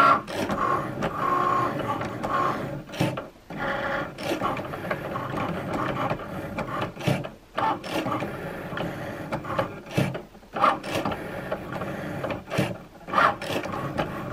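Cricut Maker cutting machine running its cutting pass on cardstock. Its motors drive the blade carriage and the mat in short runs, with brief stops about four times.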